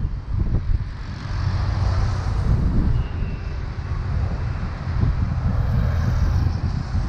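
Wind buffeting the microphone of a camera on a moving bicycle, with the rush of car traffic passing on the avenue on both sides, swelling as vehicles go by.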